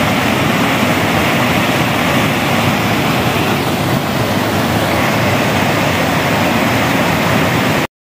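Small waterfall cascading over sandstone ledges: a steady rush of falling water that cuts off abruptly near the end.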